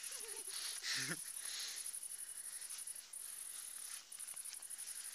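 Crickets trilling in a steady, fast-pulsing high chorus that stops briefly twice near the middle. A short vocal cry cuts in about a second in.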